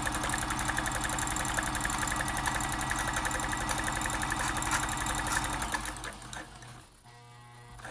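Janome Combi DX 502 sewing machine stitching a tight zigzag, running at a steady fast, even rhythm of motor and needle. It slows and stops about six seconds in.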